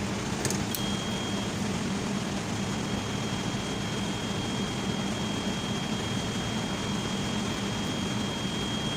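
Steady hum of running machinery, with a thin high whine that starts under a second in and holds steady.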